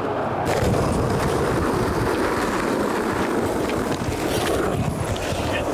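Skateboard wheels rolling on pavement, a steady rolling noise that starts suddenly about half a second in.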